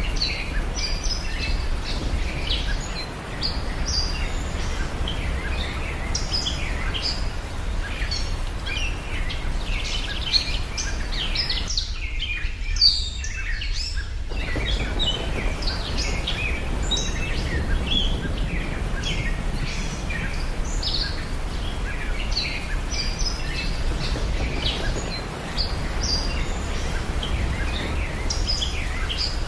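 Many birds chirping and calling over a steady low background noise, with a short break in the chirping about twelve seconds in.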